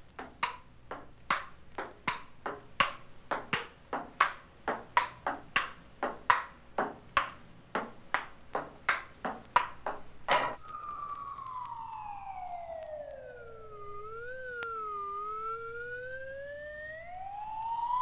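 Ping-pong ball being hit back and forth, about three sharp clicks a second, for the first ten seconds. Then a single wailing, siren-like tone slides slowly down, wobbles, and climbs back up.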